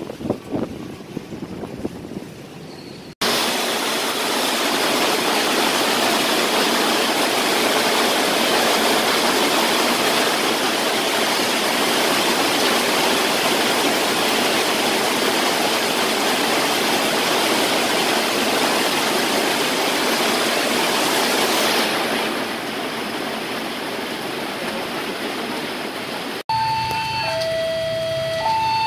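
Heavy rain falling, a loud, even hiss, with wind buffeting the microphone in the first few seconds. Near the end a railway level-crossing warning alarm starts, two tones alternating about once a second, signalling an approaching train.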